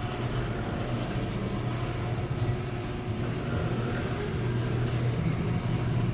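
A steady engine or motor running, a constant low hum under an even noise.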